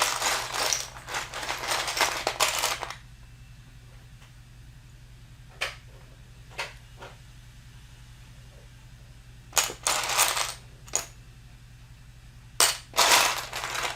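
Loose plastic building bricks rattling and clacking as they are rummaged through by hand: a few seconds of dense clatter at the start, single clicks in the middle, and two more short bursts near the end.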